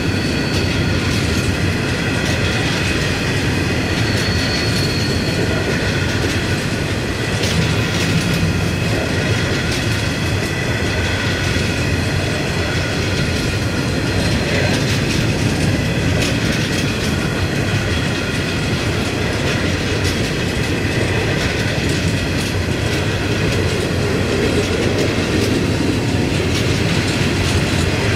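Long rake of empty steel coal hopper wagons rolling past, with steady rumbling and the clatter of wheels over the rail joints. A steady high-pitched squeal from the wheels on the rails runs over it.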